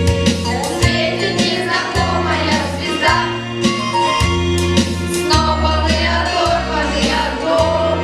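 A song with a steady beat and a held bass line, with singing voices over it.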